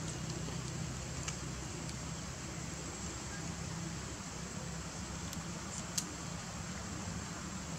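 Steady low background rumble, like distant traffic, with a faint constant high whine over it and a couple of soft clicks, one about a second in and a sharper one about six seconds in.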